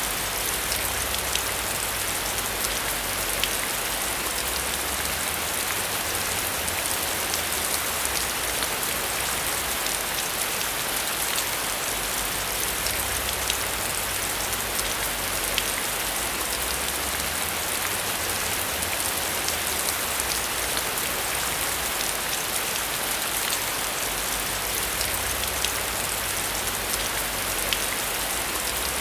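Heavy rain falling steadily on a metal roof, a dense even hiss with many individual drops ticking sharply on top.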